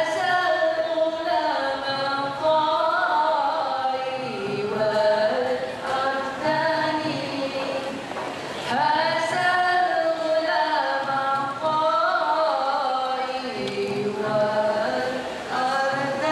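A group of women singing a nasyid in long melodic phrases.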